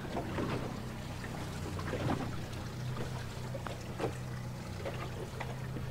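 Boat's outboard motor running at low speed, a steady low hum, with faint splashes and water noise over it.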